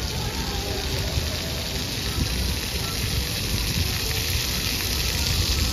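Water pouring off the rim of a whale-tail fountain sculpture and splashing onto wet paving stones: a steady splashing hiss.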